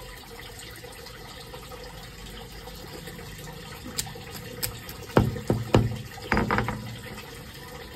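A stone grinding roller (nora) knocking down on crab claws on a concrete slab to crack their sharp shells, a quick run of about six knocks some five seconds in. Steady running water hisses underneath.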